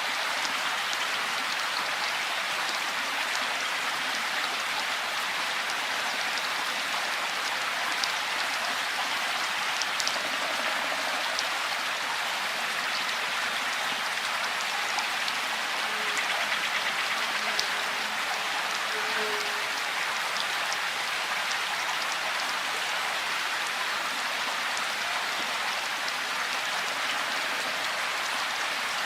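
Steady rain falling, an even hiss with occasional sharper drop hits.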